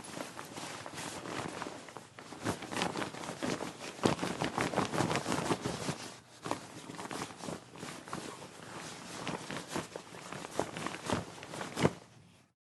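Winter coat fabric being rustled and crumpled by hand: a run of crisp swishing and crackling strokes, busiest and loudest a few seconds in, with one sharp rustle near the end before it cuts off.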